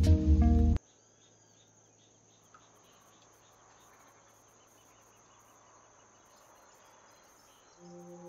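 Bass-heavy music cuts off abruptly under a second in. Near silence follows, with only a faint hiss. Soft music of long held notes starts near the end.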